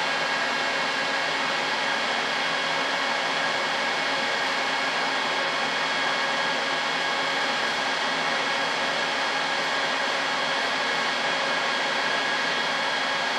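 Small electric motor running steadily with an even hiss and a few faint steady whining tones.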